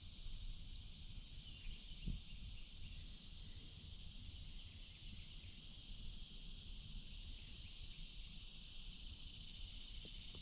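Steady high-pitched insect chorus droning without a break, over a low rumble, with one soft knock about two seconds in.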